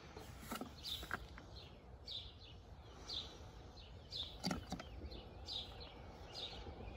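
A small bird chirping over and over, short high calls about two a second, with a few faint knocks.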